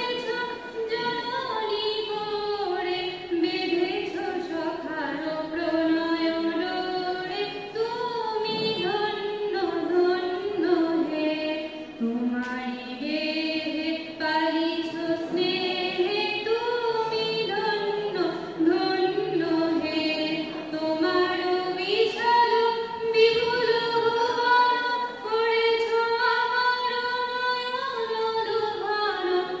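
Women's voices singing a slow, melodic song into a microphone, unaccompanied.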